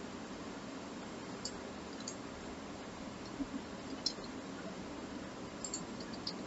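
A few faint, scattered computer keyboard and mouse clicks over a steady hiss of room and microphone noise.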